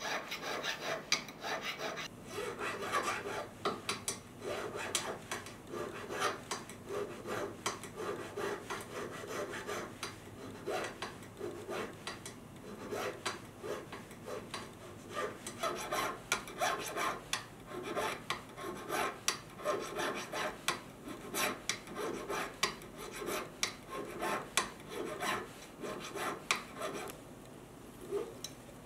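A jeweller's needle file rasping in repeated short strokes on the metal setting of a jade pendant. The strokes ease off near the end.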